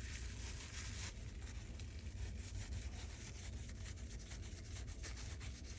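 A brief hiss in about the first second, then steady dry rubbing and scratching as the vacuum roller's bearing is worked by hand to check that it turns freely.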